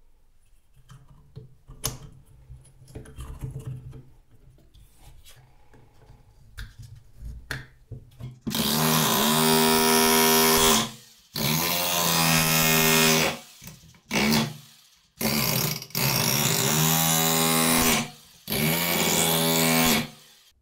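Rotary hammer running in hammer mode in five loud bursts, the third one short, driving nails into wood with a bolt chucked in it as a punch. Before it starts there are faint clicks and knocks of the tool being handled.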